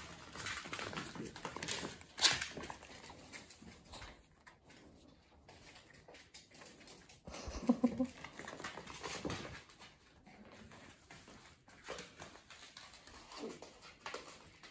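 Papillon puppies at play: light scuffling and clicks of small paws and a toy on a hard floor, then one puppy gives a short whine about eight seconds in.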